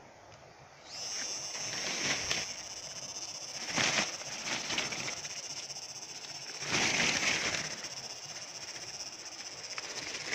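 Coffee shrub leaves and branches rustling in three swells as they are brushed past, over a steady high-pitched drone that starts abruptly about a second in.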